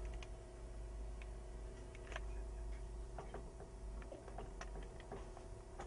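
Quiet room tone: a low steady hum with scattered faint ticks and clicks.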